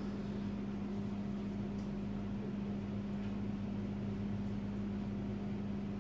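Steady low electrical hum with an even fan-like hiss from running room equipment, with a few faint ticks.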